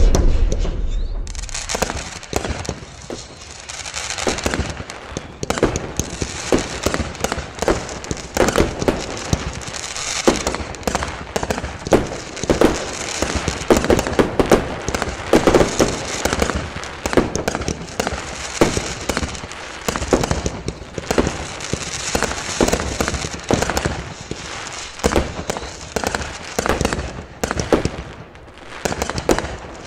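Fireworks going off: a dense, irregular run of bangs and crackles.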